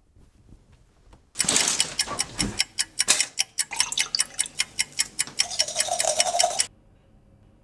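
Fast, even clock-like ticking, about six ticks a second, over a rushing noise. It starts suddenly a little over a second in and cuts off abruptly near the end.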